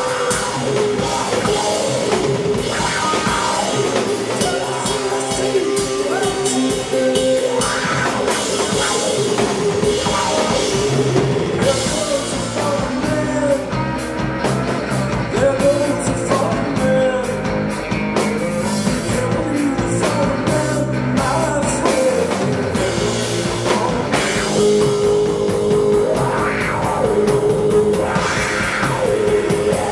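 Live rock band playing a song, with a steady drum kit beat under held, pitched instrument tones.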